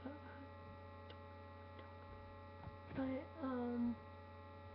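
Steady electrical mains hum with several faint steady higher tones. About three seconds in, a girl gives a short closed-mouth "mm-hmm" in two falling notes.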